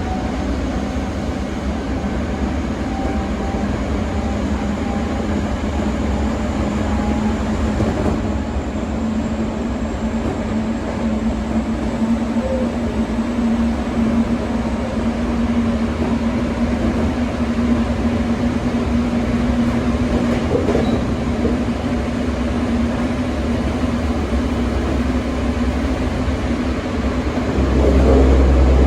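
Toei 5300 series subway train running between stations, heard from inside the car: a steady rumble of wheels on rail with a steady hum. The low rumble grows louder near the end.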